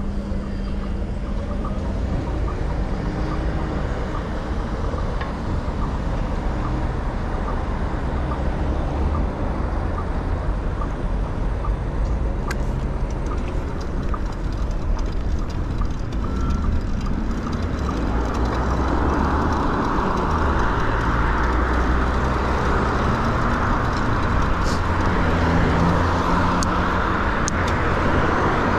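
City road traffic heard from a bicycle at a wide intersection: a steady low rumble of passing cars. Light, evenly spaced ticking runs through the first several seconds, and a louder hiss builds from about two-thirds through.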